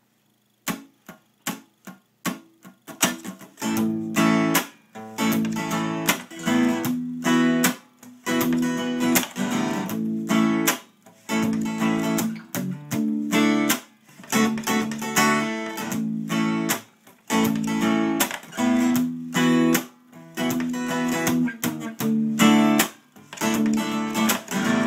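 Acoustic guitar: a few single plucks, then strummed chords in a steady rhythm, played as an instrumental intro.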